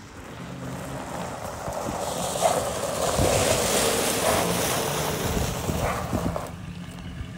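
GMC Sierra pickup rolling slowly over loose gravel: its tyres crunch on the stones with the engine running low underneath. The crunching grows louder as the truck passes close, about two seconds in, and eases near the end as it pulls away.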